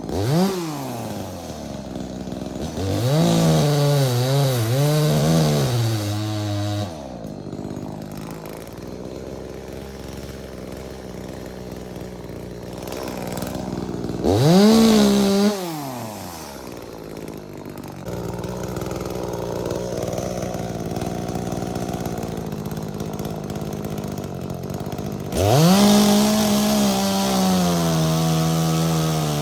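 Two-stroke chainsaw revving up and dropping back to a steady idle several times. There is a brief rev at the start, a longer wavering high-rev run a few seconds in, a quick rise and fall about halfway, and a high rev held steady near the end.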